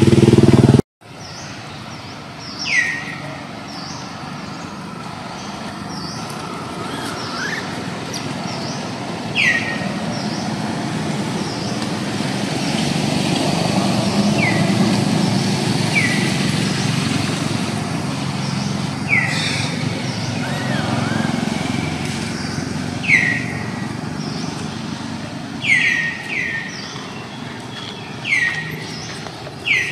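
A loud low rumble cuts off abruptly about a second in. Then comes a steady low rumble of distant traffic, with a short, high, falling chirp repeated every few seconds, often singly and sometimes in quick pairs, typical of a bird call.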